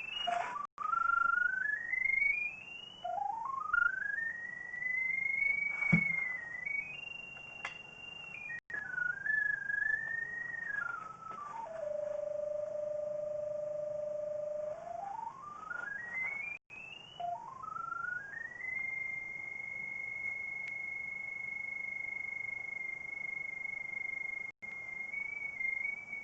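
Pipe locator receiver sounding a single electronic tone that slides up and down in pitch as it is swept over the sewer camera's sonde, drops to a low steady note for a few seconds midway, then climbs and holds a high steady note for the last several seconds as it sits over the camera head.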